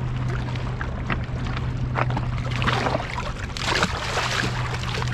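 River water sloshing against riprap rocks, with a louder splash about three and a half seconds in as a small blue catfish is dropped back into the water. A steady low hum runs underneath.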